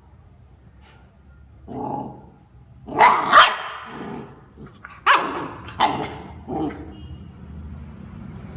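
Labrador puppy barking: a softer, lower bark about two seconds in, two loud sharp barks in quick succession a second later, then three more spaced barks.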